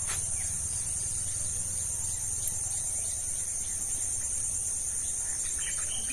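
Steady, high-pitched insect chorus, like crickets or cicadas, trilling without a break.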